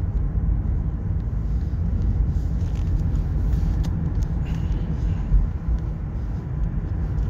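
Steady low rumble with a few faint clicks over it.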